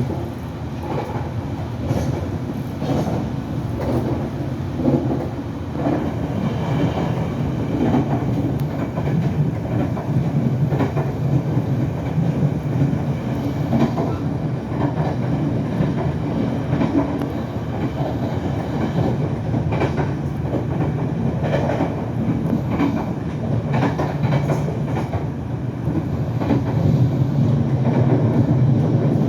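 Puyuma Express tilting electric train (TRA TEMU2000) running at speed, heard from aboard: a steady rumble of wheels on rail with scattered clicks from the track. It grows a little louder near the end.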